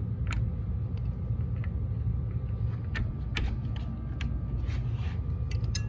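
A few short, sharp metallic clicks of a wrench on the safety bolt and steel cam phaser held in a bench vise as the bolt is backed out, scattered irregularly over a steady low background rumble.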